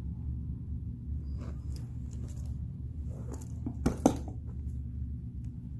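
Gold-tone metal snap-hook clasps on a Louis Vuitton Pochette Métis shoulder strap clinking as the strap is handled and set down, with two sharp clicks about four seconds in, over a steady low hum.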